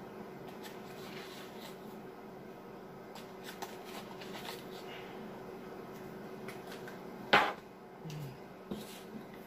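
Quiet handling of a cardboard spice box and a metal measuring spoon over a glass bowl: faint taps and rustles over a steady low hum, with one sharp knock about seven seconds in.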